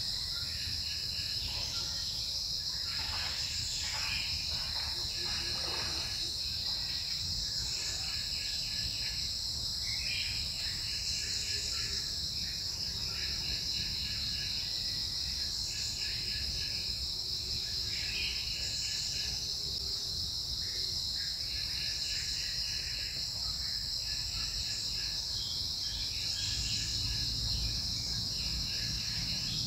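Forest insects buzzing in a steady high drone, with a second insect chirping in repeated short trills every couple of seconds.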